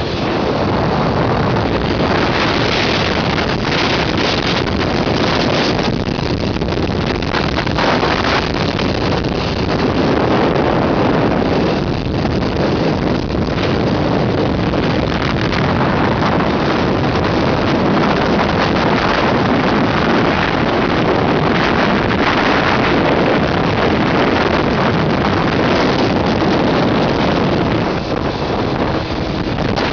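Heavy wind rush on the microphone over a Honda CBR600F4i's inline-four engine, a motorcycle being ridden at road speed. Near the end the level dips slightly and a steady engine note comes through.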